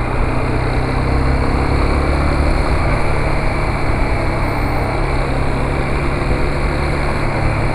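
Yamaha Fazer 250's single-cylinder engine running steadily as the motorcycle rides along at city speed, with a rush of wind over the rider's microphone.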